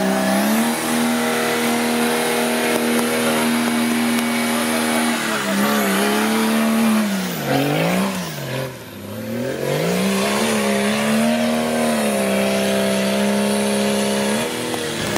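Off-road trial buggy's engine revving hard and held at high revs while it climbs a muddy bank, its tyres spinning and throwing mud. Midway the revs drop and rise twice as the throttle is worked, then climb back and hold before falling off near the end.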